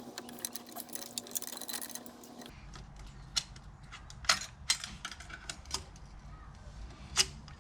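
Scattered light clicks and small metallic clinks of hand work on car engine parts and connectors, with two sharper clicks, one about four seconds in and one near the end. About two and a half seconds in, the background changes abruptly to a low rumble.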